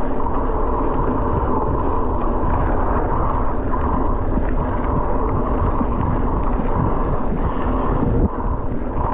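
Steady rush of wind buffeting the microphone and rolling noise of a bicycle being ridden fast along the trail.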